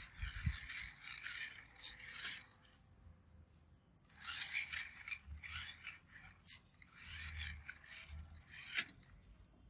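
Scraping and rubbing in three bursts, with sharp clicks, from the toy RC rock crawler working its way over the track.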